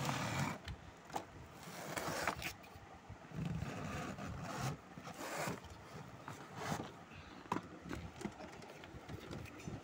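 Cardboard being handled: irregular scraping and rustling of a cardboard shipping box as a boxed toy car is slid out of it, with a few short clicks.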